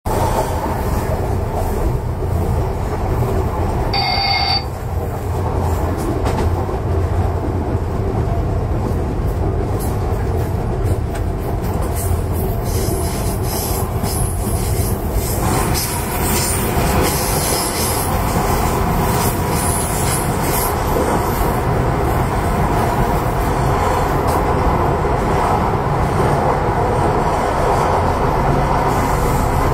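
Train running at speed along curving track, heard from the front of the train: a steady rumble of wheels on rails, a brief high tone about four seconds in, and high wheel squeal on the curves from about twelve seconds. From about fifteen seconds the sound turns fuller and more echoing as the train runs into a tunnel.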